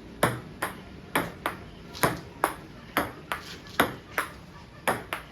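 Table tennis rally: the ball clicking sharply off the paddles and bouncing on the table in a steady back-and-forth, about two clicks a second.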